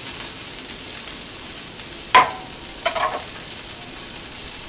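Steady sizzle of chopped onion, garlic and chili peppers frying on a flat-top griddle. A sharp knock about two seconds in, and a couple of lighter knocks a second later, as the kitchen knife is set down on the wooden cutting board.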